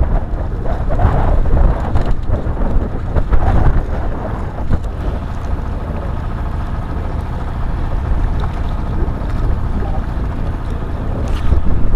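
Wind buffeting the microphone: a loud, uneven low rumble, over choppy sea water.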